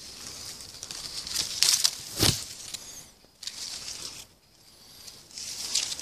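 Hazel leaves and undergrowth rustling in bursts as someone pushes through the bushes, with a single thump a little over two seconds in.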